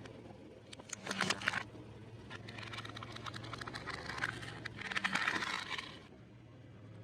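Crunchy fried food crackling and crunching in three bursts, over a steady low hum.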